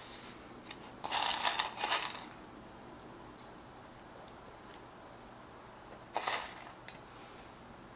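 Toasted sunflower seeds rattling and clinking in their container as they are taken out by hand to sprinkle over a dish. There are two short rattles, about a second in and again about six seconds in, and a sharp click soon after the second.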